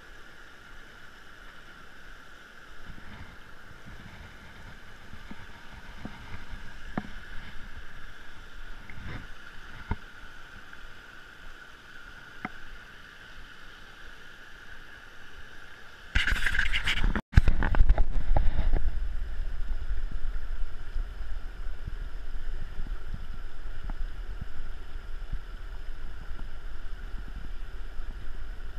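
Rocky mountain stream running over stones, with a few faint clicks and knocks of handling. A little past halfway it turns suddenly much louder and deeper: close rushing and sloshing of water right at the microphone as a hand reaches into the stream.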